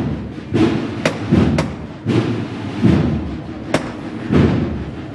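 Slow, steady procession drum beat, one deep hit about every three-quarters of a second, with a few sharp clicks between the beats.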